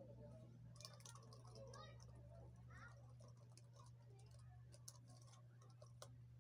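Faint, irregular clicks of keys being typed on a Fujitsu laptop's keyboard, over a low steady hum.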